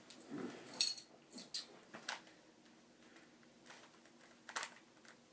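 Plastic Rubik's Cube being twisted by hand: a few irregular sharp clacks of the layers turning, the loudest about a second in.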